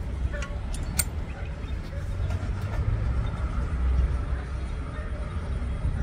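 Low rumble of a diesel multiple-unit train running away along the track, with a couple of sharp clicks in the first second.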